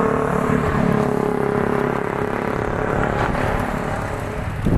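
Motorcycle engine running at a steady cruise, with wind rushing over the microphone.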